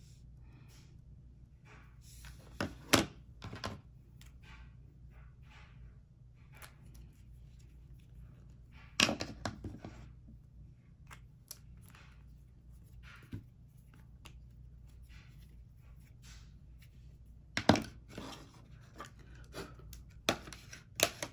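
Scattered light clicks, taps and knocks of makeup compacts and tools being handled and set down, with three sharper knocks about three, nine and eighteen seconds in, over a faint low hum.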